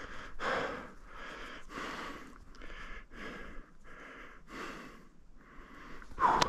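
A person breathing hard and fast close to the microphone, with audible in- and out-breaths at about two a second.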